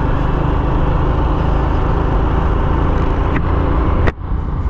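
Motorcycle engine running steadily at cruising speed, with loud wind and road noise from riding. The sound drops sharply for a moment about four seconds in, then picks up again.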